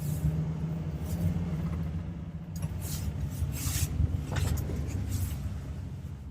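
Car driving on the road: a steady low rumble of engine and tyres, with a few brief hissing crackles in the middle.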